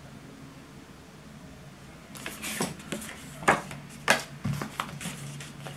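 Handling noise: after a quiet couple of seconds, a run of sharp clicks, taps and rustles from objects being moved and picked up on a tabletop, over a faint steady low hum.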